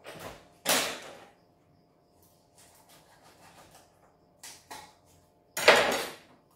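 Knife cutting a whole raw chicken open on a cutting board, in a few short, noisy cuts. The louder ones come about a second in and near the end.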